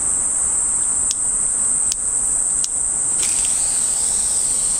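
Steady, high-pitched insect chorus, broken by three very short dips in its first half. About three seconds in, a soft spray hiss from a garden-hose mist nozzle starts under it.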